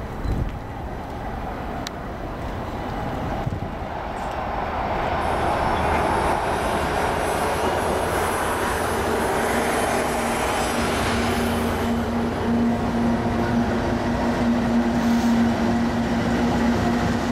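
CSX freight train's GE diesel locomotives approaching and passing close by, the engine rumble growing louder through the first half. A steady low hum sets in about halfway through as the units go by.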